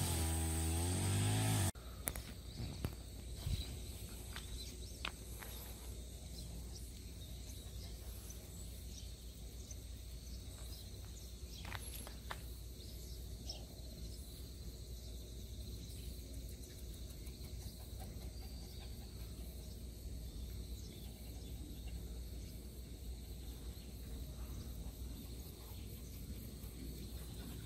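Quiet rural outdoor ambience: a faint, steady insect drone over a low rumble, with a few soft clicks. A louder low hum is heard briefly at the start and cuts off abruptly about two seconds in.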